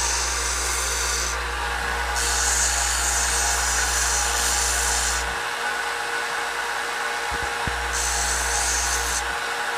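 Belt grinder running while a small copper rivet is pressed against the moving belt to grind off its burrs, giving a hiss of abrasive on metal in three passes: at the start, for about three seconds from two seconds in, and briefly near the end.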